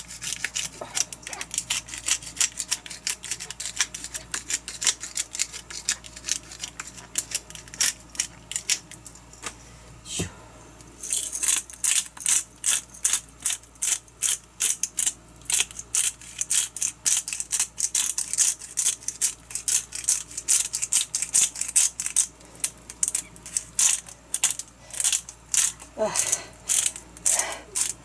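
A spice bottle shaken over raw chicken breasts: a fast run of rattling clicks, louder and more even, about three or four shakes a second, from about eleven seconds in.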